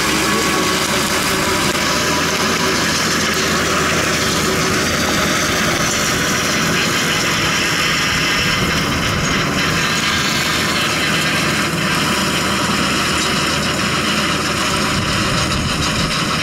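Tractor engine running steadily while pulling a ratoon-manager implement through dry soil between sugarcane rows.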